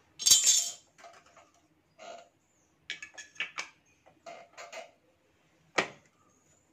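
Parts of a submersible pump's impeller stack being handled on the shaft. A loud scraping rattle comes just after the start, followed by a series of light clicks and knocks, and a sharp click near the end.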